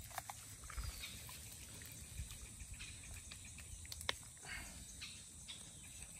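Faint outdoor ambience with steady high-pitched insect chirring, and a few light clicks and a soft rustle from hands working a catfish free of a nylon cast net; one sharper click about four seconds in.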